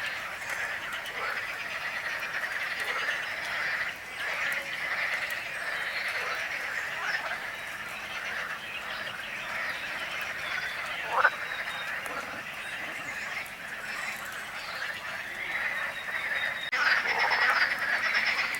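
A dense chorus of frogs croaking continuously, many calls overlapping. About eleven seconds in there is one brief, louder sound, and the chorus grows louder near the end.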